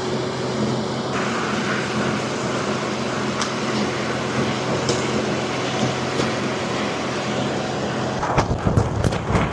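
High-power wind machine running steadily, a constant machine drone under the rush of blown air. About eight seconds in, gusty buffeting and sharp flapping of the tent fabric break in.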